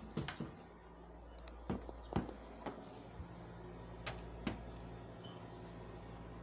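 Scattered clicks and knocks of a toy car being handled close to the microphone, over a steady low hum.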